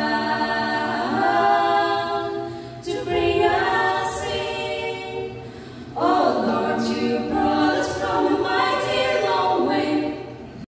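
A quartet of women singing a gospel song a cappella into microphones, with no instruments. Held phrases break briefly about three and six seconds in, and the singing stops abruptly at the end.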